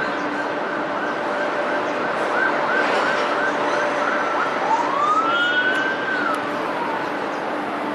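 Emergency vehicle siren sounding in a fast yelp, then switching about four and a half seconds in to a slow wail that rises and falls in pitch, over a steady background hiss.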